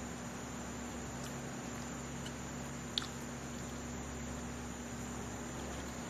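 Room tone: a steady hiss with a faint low hum, and one short click about three seconds in.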